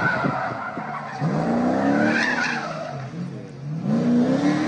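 Car engine revving up twice, rising in pitch each time, with a short screech of tyres around two seconds in.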